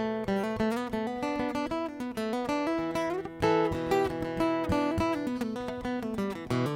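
Acoustic guitar playing an instrumental passage of quick plucked notes and ringing chords, with no singing.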